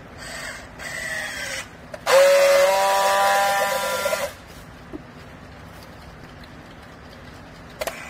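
Clothing baler machinery running in short spells: two brief whirring runs, then a loud whine with several steady tones lasting about two seconds that cuts off abruptly.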